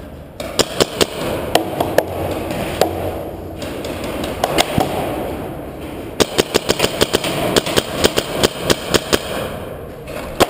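Paintball markers firing: scattered sharp pops, then a rapid string of shots at several a second from about six seconds in to about nine seconds in.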